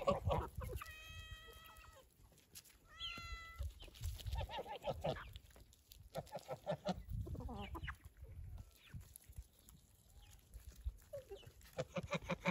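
Domestic chickens clucking as they feed, with short calls scattered throughout and two longer drawn-out pitched calls in the first few seconds.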